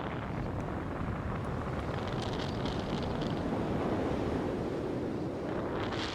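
Strong wind buffeting the microphone: a dense, steady low rumble, with a brief hiss over it about two seconds in.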